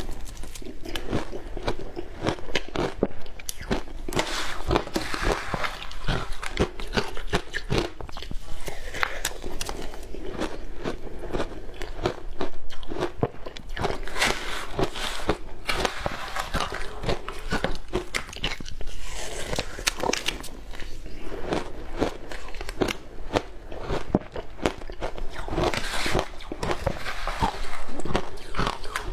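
Close-up crunching and chewing of mouthfuls of shaved ice coated in matcha and milk powder: dense, continuous crackling bites. A metal spoon scoops and scrapes through the ice in a plastic tub between mouthfuls.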